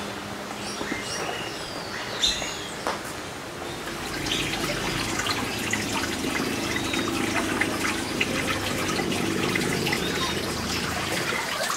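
Water trickling and splashing steadily, getting louder about four seconds in, with a few bird chirps in the first couple of seconds.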